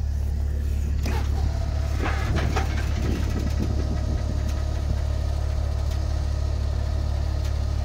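Car-hauler truck's diesel engine idling with a steady low hum. About a second in, a steady higher whine joins it as the trailer's hydraulic deck is worked, with a few clanks and creaks over the next couple of seconds.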